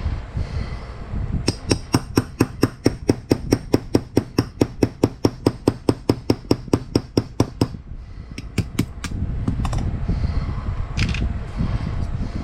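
Rapid, evenly spaced mechanical clicking, about six clicks a second for some six seconds, then a few more clicks a moment later, over a steady low rumble.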